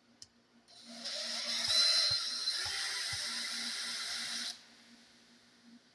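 A small power driver with a 2mm hex bit whirring for about four seconds, backing out a chassis screw, then cutting off suddenly.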